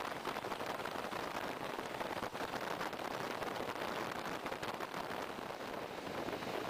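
Steady wind rush with crackling buffeting on the microphone, held out of the window of a moving diesel train, and the train's running noise beneath it.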